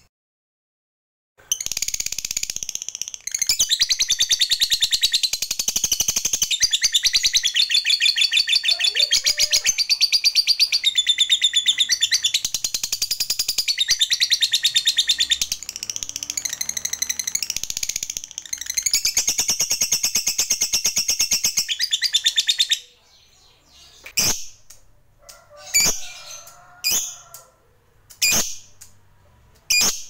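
Lutino Fischer's lovebird giving a long 'ngekek': a fast, high, rattling trill of chatter kept up for about twenty seconds, then breaking off into a few short separate chirps.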